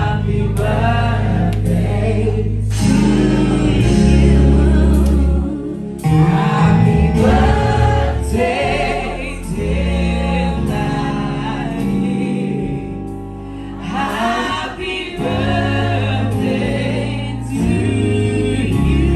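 Live gospel worship song: several voices singing over a band with strong, held bass notes.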